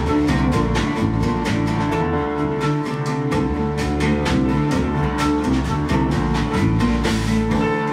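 Live ensemble music led by an oud: quick plucked oud notes over sustained low notes.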